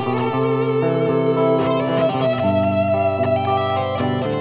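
Electric guitar played through an amplifier cabinet, a run of held notes that change about every half second to a second.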